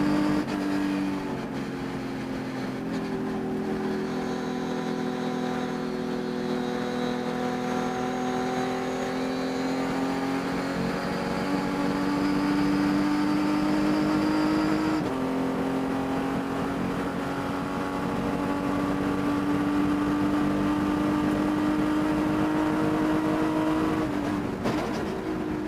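Race car engine running hard at high revs, its note holding nearly steady with sudden steps in pitch a few times and a dip and pick-up near the end. The engine has a high-rpm miss that parts changes did not cure.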